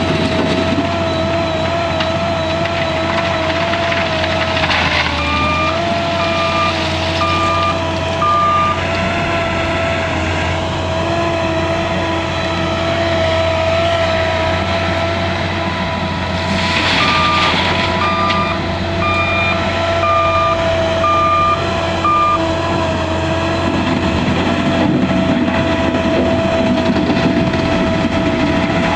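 L&T 9020 wheel loader running at steady working revs, its reversing alarm beeping in two runs, about four beeps and then about six, as it backs up. A short rush of noise comes just before each run of beeps.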